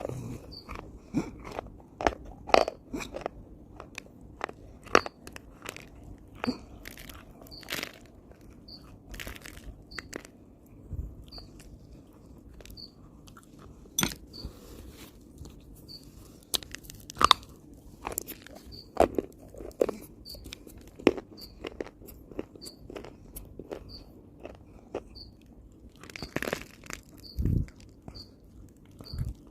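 A person biting and chewing something hard and brittle close to the microphone: irregular sharp crunches, some loud, with quieter chewing between them.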